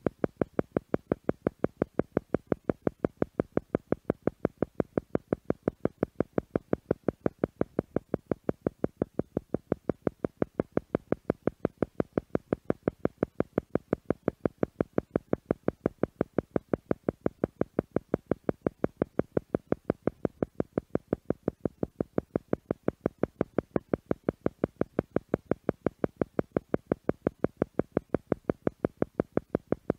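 Theta meditation sound: an electronic tone pulsing on and off at an even rate of several pulses a second, steady throughout, meant as a theta-frequency beat to slow the listener's brain waves for meditation.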